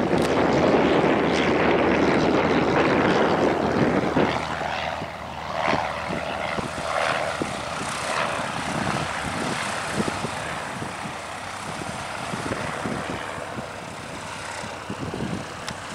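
Cessna 152 light aircraft's four-cylinder piston engine and propeller at full takeoff power as it lifts off and climbs away. The low rumble drops away suddenly about four seconds in, and the engine sound then fades steadily as the plane recedes.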